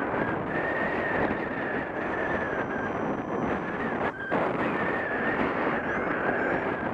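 Rushing airflow of paragliding flight buffeting an action camera's microphone, with a steady, slightly wavering high tone over it. Everything drops out for a moment about four seconds in.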